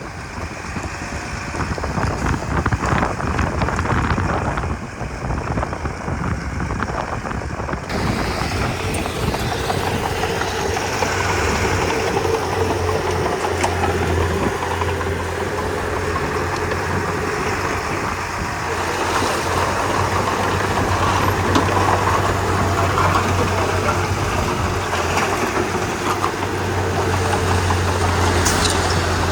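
Komatsu D31P crawler bulldozer's diesel engine running steadily with a low drone and mechanical clatter; the sound gets brighter about eight seconds in.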